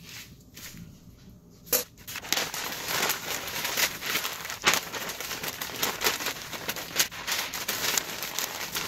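Butcher paper crinkling and rustling as it is folded tightly around a smoked pork butt. It is quieter at first, with one sharp crackle a little under two seconds in, then the crinkling goes on continuously and unevenly.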